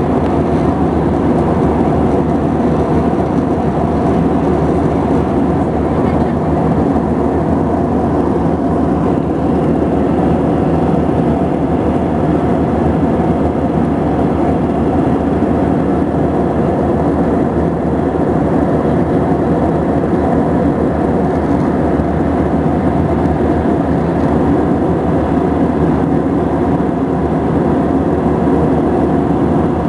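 Steady engine and airflow noise inside the cabin of an Airbus A319 in flight, an even rushing sound with a constant hum under it.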